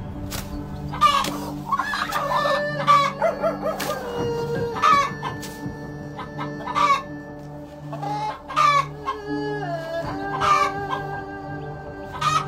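Chickens clucking and giving sharp squawking calls again and again, over background music with a steady low pulse about twice a second.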